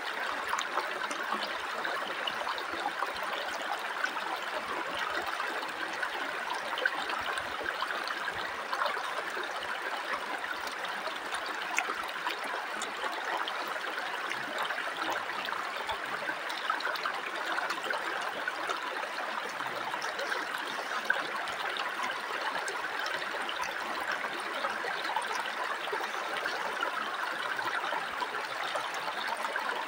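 River water running steadily over rocks, an even rush that stays level throughout, with a few faint short clicks over it.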